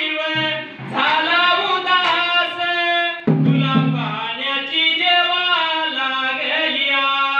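A man singing a Marathi shahiri folk ballad into a microphone, drawing out long held notes in a strong, full voice.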